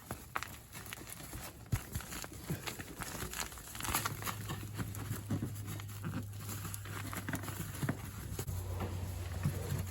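Scattered taps, rustles and crinkles of a gearbox heat-shield blanket being handled and fitted by hand under a car. A low steady hum joins about four seconds in.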